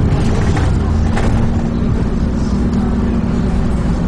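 Dennis Trident 2 double-decker bus heard from inside the cabin, its engine running with a steady low drone and road rumble. A brief click or rattle comes about a second in.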